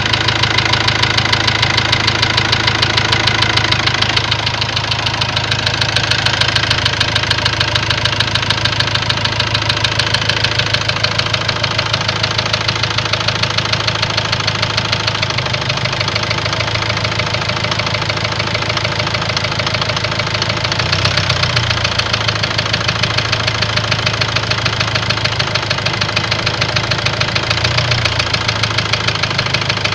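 Ford Transit engine idling steadily with a fast, even knock running through it: a knock inside the engine.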